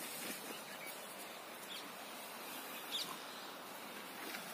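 Outdoor ambience on a scrubby hillside: a steady hiss with a couple of faint, short, high chirps about two and three seconds in.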